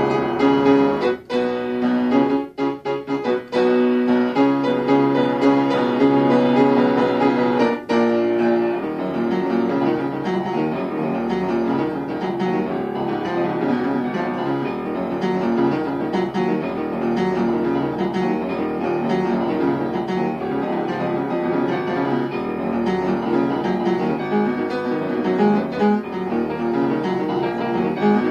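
Upright piano being played, a continuous piece of chords and melody, broken by a few brief gaps in the sound during the first eight seconds.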